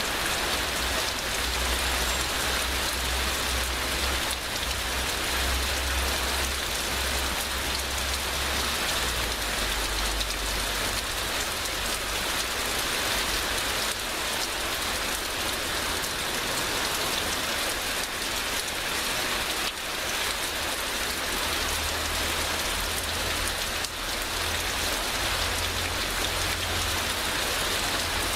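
Heavy rain in a steady downpour, an even, unbroken hiss of drops, with a low rumble that swells and fades underneath.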